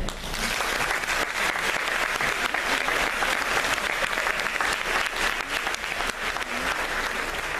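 Audience applauding. The clapping breaks out at once and keeps up steadily.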